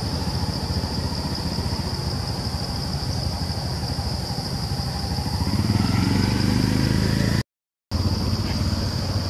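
Outdoor background: a steady high-pitched insect drone over low rumbling, with a motor-like hum swelling from about five and a half seconds in. The sound cuts out for half a second near the end, then the drone carries on.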